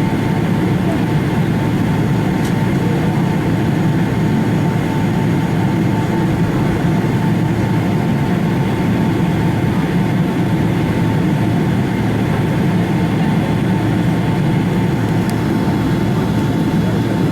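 Steady low rumble of a Boeing 777-300 cabin on the ground with its engines running and air conditioning on, with a faint steady whine over it.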